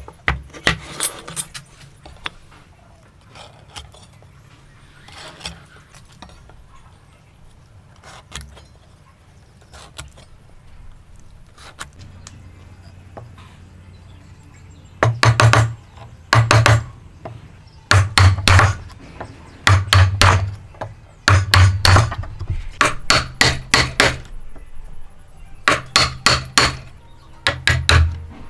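Hammer blows on wood during hand-cut joinery: a few light taps at first, then from about halfway heavy strikes in quick groups of two or three, each with a dull thud.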